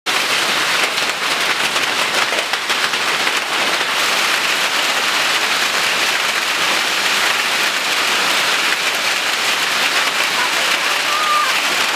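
Hail storm downpour: rain and hailstones pelting down in a loud, dense, steady hiss, with many small sharp ticks of impact in the first few seconds.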